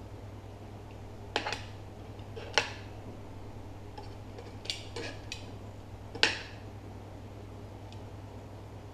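Metal tongs clinking against a frying pan and a plate as stir-fried vegetables are lifted out and served: about six sharp, short clinks a second or so apart, over a steady low hum.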